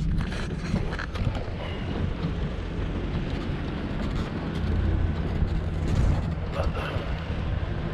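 A 3/4-ton Chevy pickup's engine running low and steady as the truck rolls slowly over sand.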